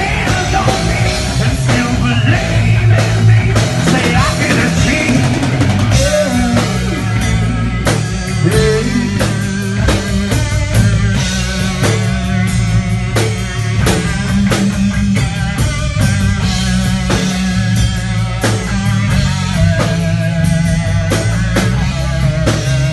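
Rock music with drum kit, electric guitar and bass playing a steady beat.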